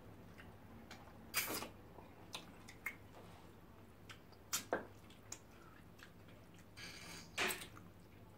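Close-up eating sounds of fish pepper soup and starch eaten by hand: scattered wet mouth smacks and squishy chewing, with three louder wet smacks about a second and a half in, near the middle and near the end.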